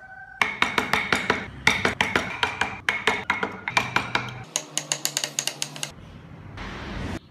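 Hand chisel cutting into wood: a quick, irregular run of sharp taps with a slight metallic ring, coming faster near the end. A short hiss of rubbing follows.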